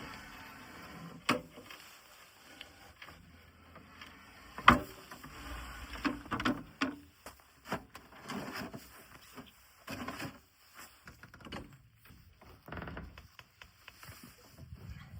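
Irregular knocks, clicks and scrapes of wooden furniture being handled, the sharpest knock about four and a half seconds in.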